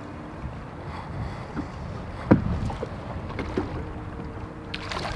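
Water lapping against a bass boat's hull with wind on the microphone, a sharp knock a little over two seconds in, then splashing near the end as a hooked smallmouth bass thrashes at the surface by the landing net.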